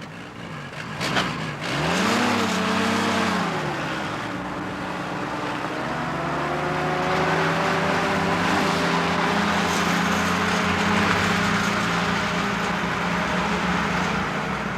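Jeep engine revving up, easing off about three seconds in, then pulling steadily with its pitch slowly shifting, as when driving up a hill.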